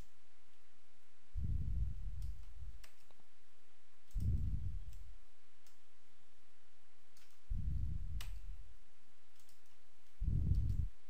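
Scattered clicks of a computer mouse and keyboard keys as code is selected and copied, with four dull low rumbles about a second long each.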